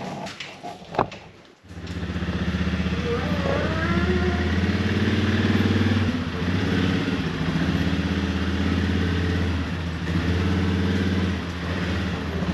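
A few knocks, then an ATV engine comes in suddenly about two seconds in and runs steadily, with small rises and falls in speed.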